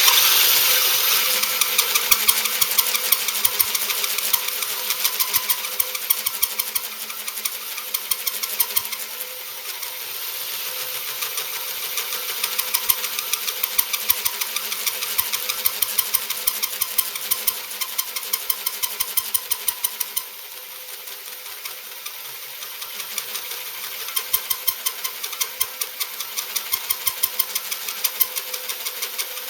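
Powered hole cutter boring through a cast iron casting with its pilot drill removed, the motor running steadily under load while the cutting teeth chatter rapidly in the metal. The loudness pulses about twice a second and dips briefly about two-thirds of the way through.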